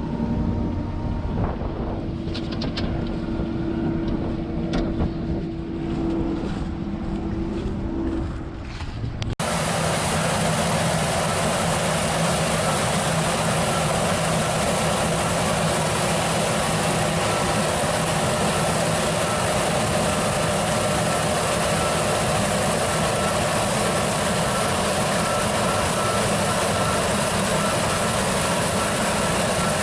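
John Deere T670i combine harvester running, heard from the cab, with a steady hum and a few light clicks. About nine seconds in, the sound cuts abruptly to a louder, even rushing noise of the machinery running.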